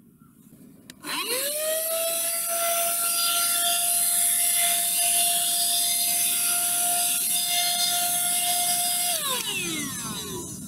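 Handheld car vacuum cleaner powered from the jump starter's DC socket. It is switched on with a click about a second in, its motor whine rises and then runs at one steady pitch with a rush of air, and near the end it falls away as the vacuum is switched off.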